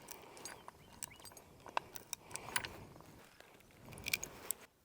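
Small metal clinks and clicks of hardware being handled while fastening wooden targets to a fence post: irregular light ticks with a few brief metallic rings, a small cluster about four seconds in.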